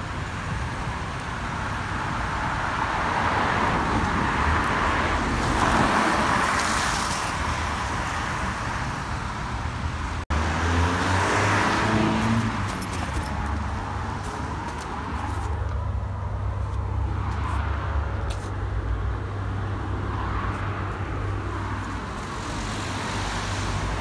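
Busy road traffic, with cars passing and swelling loudest around five seconds in and again just after a cut about ten seconds in, where one passing vehicle's pitch slides down.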